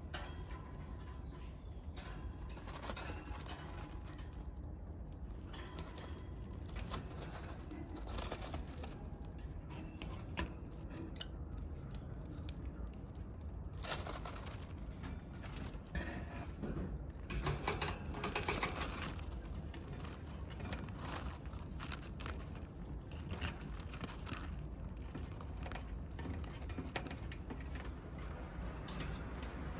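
Pet lovebirds moving about: many small clicks and taps of beaks and feet over a steady low hum, with a louder stretch about 17 to 19 seconds in.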